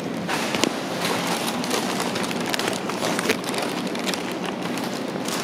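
A phone's microphone rubbing against clothing while it is carried at a walk: a steady rushing noise with a few light knocks.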